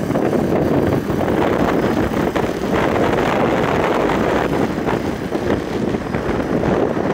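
Steady wind rush over the microphone of a moving motorcycle, with the bike's engine and road noise running underneath.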